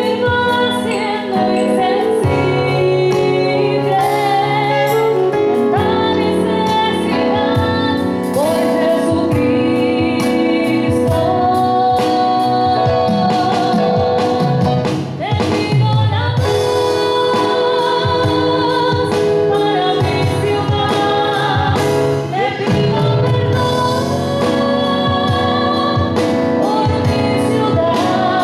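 A woman singing a church hymn over electronic keyboard chords.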